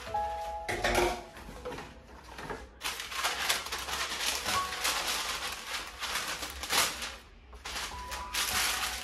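Baking paper rustling and crinkling as a sheet is pulled off the roll and handled, loudest in the middle of the stretch.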